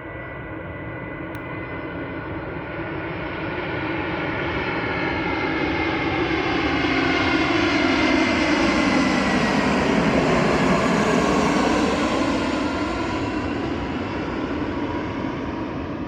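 Airbus A320 jet airliner on landing approach flying past: the engine whine swells to a peak about ten seconds in, its pitch dropping as it passes, then fades away.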